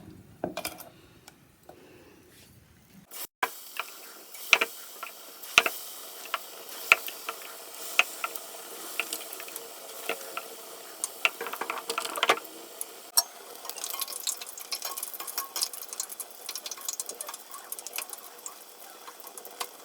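Batter-coated raw banana slices frying in hot oil: a steady sizzle with frequent sharp crackles and pops, starting about three seconds in after a quieter stretch.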